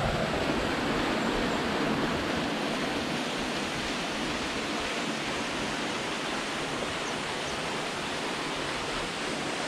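Steady rush of a waterfall, an even wash of falling water with no breaks.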